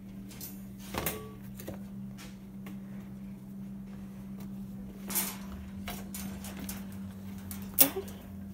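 Wire pet crate knocking and rattling as a kitten moves and is petted inside it: three sharp clicks, about a second in, around five seconds in and near the end, over a steady low hum.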